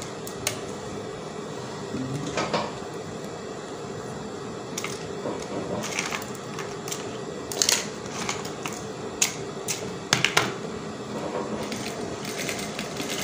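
Industrial lockstitch sewing machine stitching in short, stop-start runs: a steady motor hum with clusters of rapid clicks from the needle mechanism.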